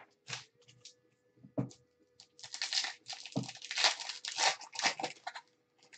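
Foil wrapper of a 2015 Prizm baseball card pack being torn open and crinkled by hand. A few short rustles come first, then a longer stretch of tearing and crinkling from about two seconds in to near the end.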